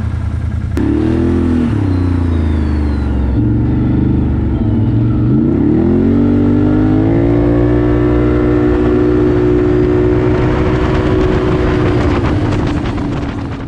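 Can-Am Renegade 1000R's tuned V-twin with a Two Brothers dual exhaust, revving up sharply just under a second in, then pulling away under hard acceleration. Its pitch climbs about five seconds in and then holds at one steady high note before fading out at the end.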